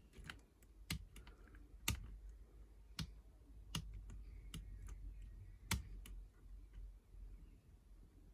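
Light, sharp metallic clicks at irregular intervals, roughly one a second, from a lever pick and tension tool working the levers inside a 5-lever mortice lock during picking.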